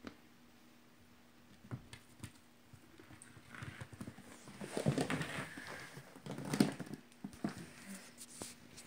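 Kittens play-fighting over a small toy on a tiled floor: scuffling and knocks, loudest about five and six and a half seconds in.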